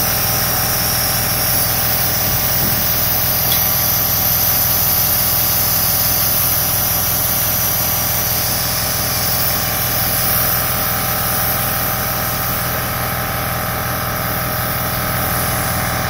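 Compressor nebulizer running steadily during a treatment, a constant motor hum with a hiss of air through the medication cup.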